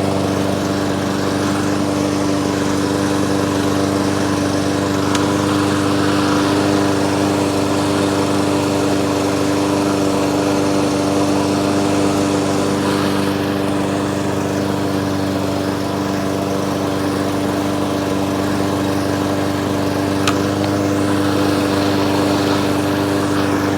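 Briggs & Stratton walk-behind lawnmower engine running steadily at a constant speed, with a single brief click about twenty seconds in.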